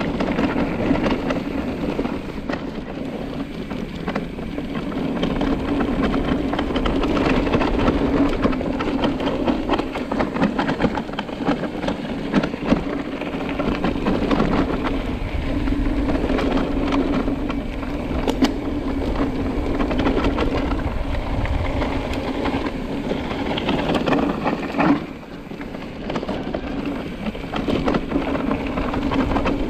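Mountain bike ridden down rough, flowy singletrack: tyres rolling over dirt and stones, with many small knocks and rattles from the bike and a steady low hum. The level dips briefly near the end.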